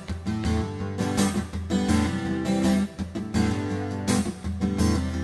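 Acoustic guitar strumming chords with a steady rhythm, an instrumental intro with no singing yet.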